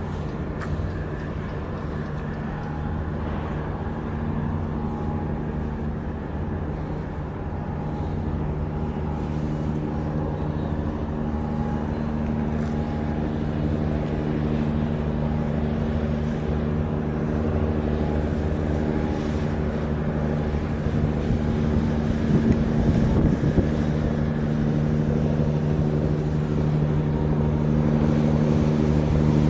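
Large container ship's machinery giving a steady low drone of several hum tones over a rumble, growing slowly louder as the ship passes close.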